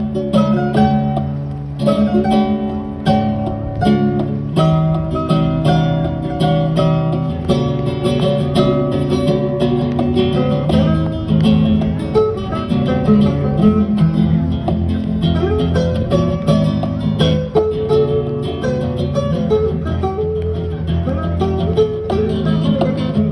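Two guitars playing together: a nylon-string acoustic guitar and an amplified electric guitar, an unbroken run of plucked melody notes over chords.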